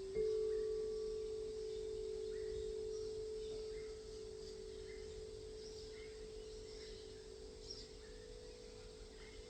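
A sound bowl struck just after the start, ringing with a long slow fade alongside the lower, steady tone of another bowl still sounding.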